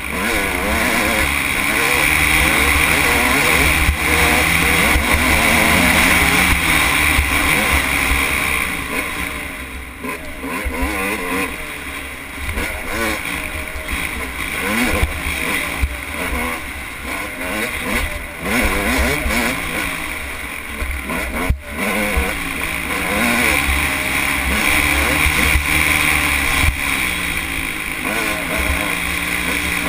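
Dirt bike engine running hard, its pitch rising and falling over and over as the throttle opens and closes.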